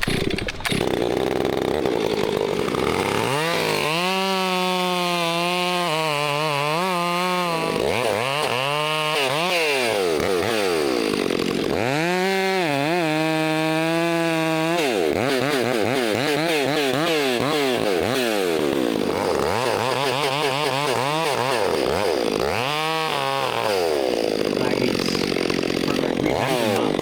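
Chainsaw cutting through a section of cherry trunk. The engine revs rise and fall over and over, with steadier stretches in the middle where the saw holds speed in the cut. The cut pinched the bar and had to be recut.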